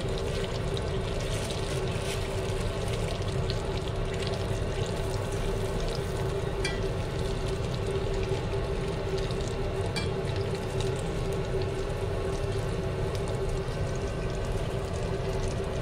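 Battered chicken skin deep-frying in hot oil in a small saucepan, sizzling and crackling steadily under a constant hum, with a couple of light clicks from the tongs.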